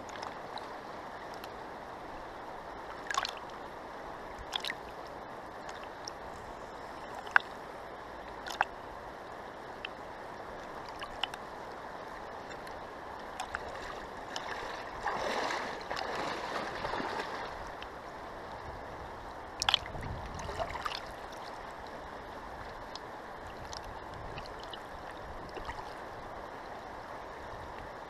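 River water rushing steadily, with occasional sharp clicks and a stretch of louder splashing about halfway through.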